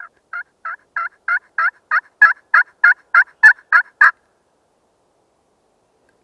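A run of about thirteen turkey yelps, evenly spaced at roughly three a second and growing louder, stopping about four seconds in.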